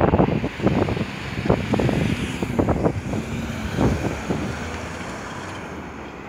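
Iron ore pellet freight wagons rolling away down the track, their wheels knocking irregularly over the rails as the sound fades. Wind buffets the microphone.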